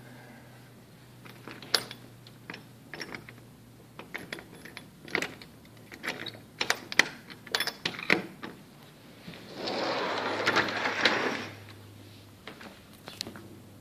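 Irregular clicks and knocks of handling and movement, then a rushing scrape lasting about two seconds.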